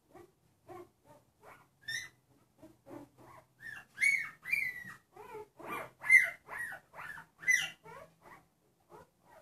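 Newborn puppy crying in a string of short, high, falling cries, two or three a second, faint at first and much louder from about four seconds in. It is protesting a cotton swab tickled between its toes, the tactile step of early neurological stimulation.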